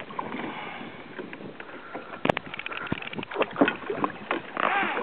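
Large conventional fishing reel being cranked to reel in a hooked mahi-mahi from a kayak: irregular clicks and knocks from the reel and hull, the sharpest click about two seconds in.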